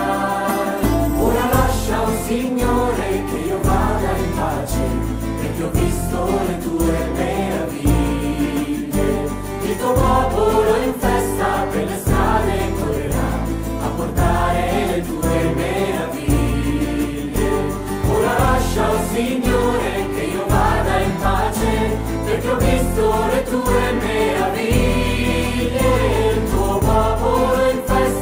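A church music group sings a song in several voices, accompanied by acoustic guitars, over a steady bass line whose notes change every second or two.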